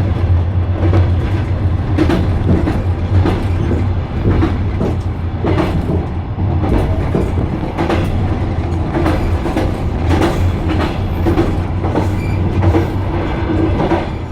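Passenger train wheels clacking over the rail joints in a repeating clickety-clack, over a steady low rumble of the moving carriage.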